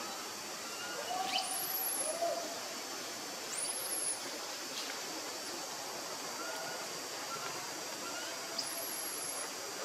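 Forest birds calling over a steady hiss of forest ambience. Thin high whistles rise sharply and then hold, three times, with a few lower arched call notes in between.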